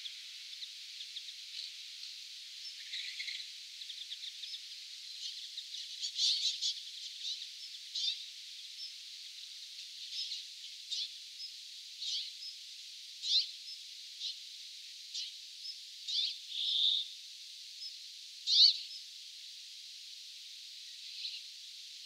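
Brambling calling: many short, sharp call notes at uneven intervals, with one loud call about three-quarters of the way through, over a steady hiss.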